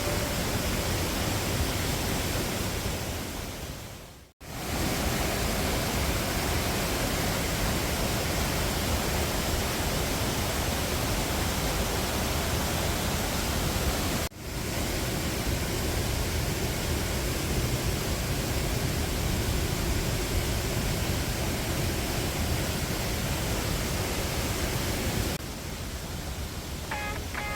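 Rushing mountain stream water, a steady loud hiss of white water spread across all pitches, with two brief cuts. Background music comes in near the end.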